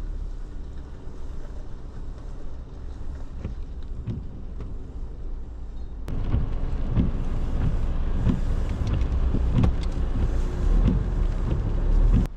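Car driving slowly over an unsurfaced track, heard from inside the cabin: a steady low rumble. About halfway through it gets louder, with repeated knocks and jolts.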